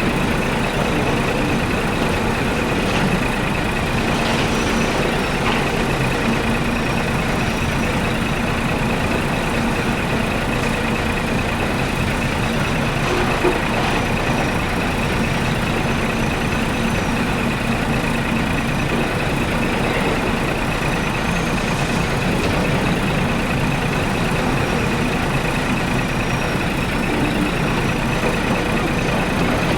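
Heavy engine running steadily, with a faint high whine that rises and falls now and then.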